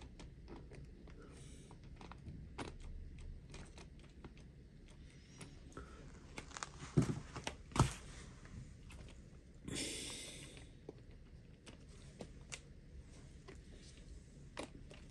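Light plastic clicks and small knocks as a rubber-tyred wheel is handled and pushed onto the front hub of an HPI WR8 Flux RC rally car chassis, with two sharper knocks about a second apart halfway through and a brief rustle a little later.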